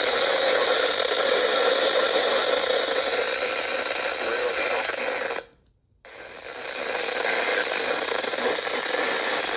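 Steady radio static hiss from a receiver between broadcast alerts. A little past halfway it cuts out suddenly for about half a second, then fades back in.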